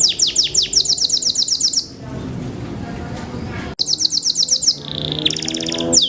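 Belgian Bossu canary singing: fast runs of repeated downward-sweeping whistled notes, with a stretch of rough noise about two seconds in, then a rapid buzzy trill near the end.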